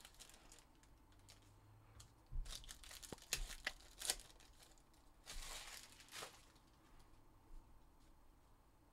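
Foil trading-card pack wrappers being torn open and crinkled by hand: scattered sharp crackles over the first few seconds, a longer crinkle about five to six seconds in, then faint.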